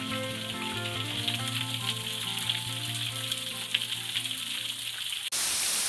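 Soft background music with sustained notes over water dripping and trickling from a rock overhang. About five seconds in the music cuts off suddenly and the steady rush of a small waterfall takes over.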